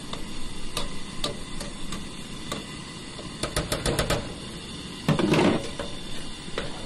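A slotted metal spatula clinking and scraping against a metal cooking pot while stirring fish boiling in foaming soda, with a quick run of light taps about halfway through and a louder clatter about five seconds in. A steady hiss from the lit camp-stove burner runs underneath.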